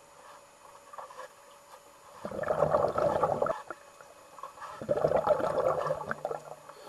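Water churning and bubbling in two surges, each a second or more long and about two seconds apart, as the exercise ball and leg are driven through the pool water.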